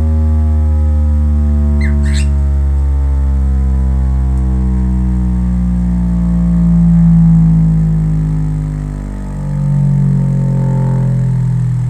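Bass-heavy synthesized sound played loudly through a subwoofer and sound bar: a steady deep bass under a stack of tones that slowly slide in pitch, with two brief high chirps about two seconds in.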